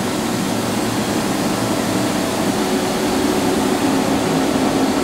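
Steady hum and fan noise from the electrical cabinet of a powered-up 1995 Toyoda CNC horizontal machining center, with a few steady low tones under an even hiss.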